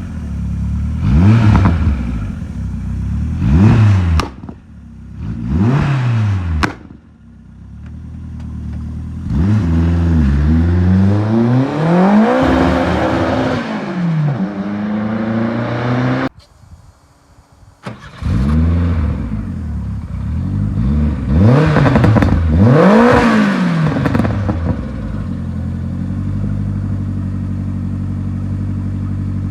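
The 1989 VW Polo 86c's turbocharged 1.3-litre eight-valve four-cylinder engine being revved in repeated quick blips, each rising and falling in pitch, with a longer run of revs in the middle. After a brief drop almost to silence it revs again, then settles into a steady idle for the last few seconds.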